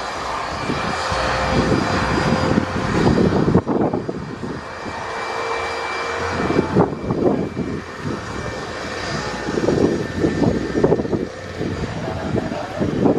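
Twin turbofan engines of a Bombardier CRJ-type regional jet running as it rolls along the runway: a steady jet roar with a thin high whine, and an uneven low rumble that swells and fades.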